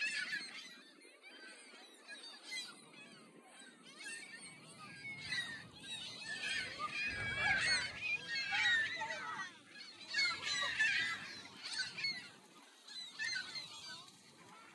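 A flock of gulls calling overhead: many overlapping high cries, thickest around the middle and again a little past ten seconds in.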